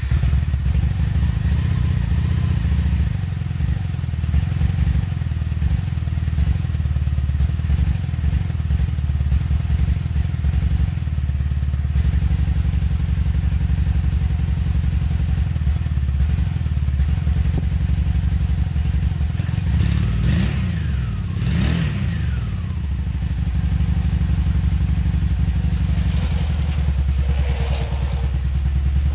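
2002 Honda Magna VF750C's liquid-cooled V4 engine idling steadily through its twin mufflers just after a cold start.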